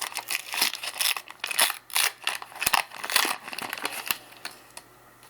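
Crinkling and tearing of a trading-card pack's wrapper as it is opened by hand, in quick irregular crackles that die away about four seconds in.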